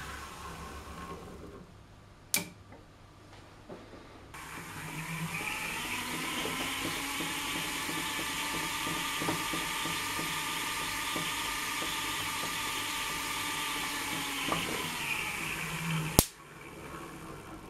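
Wimshurst electrostatic machine running: its discs whir, rising in pitch about four seconds in, holding steady, then slowing near the end. A scatter of small ticks comes as light granules jump between the charged capacitor plates. A sharp spark crack comes about two seconds in, and a louder one comes just before the end.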